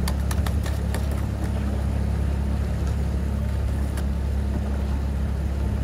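Outboard motor of a coaching launch running at a steady low hum, with a few sharp clicks in the first second and a half.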